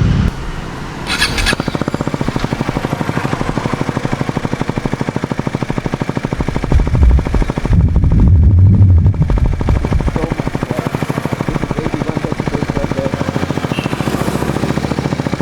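KTM Duke 250's single-cylinder four-stroke engine running through an Austin Racing GP1R aftermarket exhaust fitted with two dB killers, with an even, rapid exhaust beat and a deep note. The throttle is blipped twice, at about 7 s and again around 8 to 9 s, before the engine settles back to idle.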